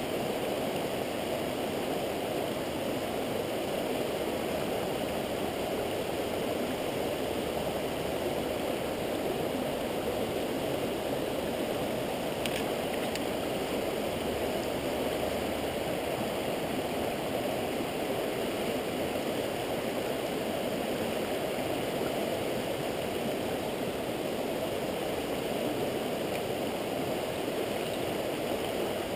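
Rushing water of a rocky river running over riffles: a steady, even rush.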